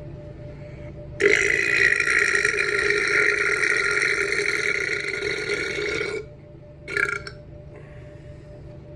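A long, loud burp from swallowed air, held for about five seconds, followed about a second later by a brief short one.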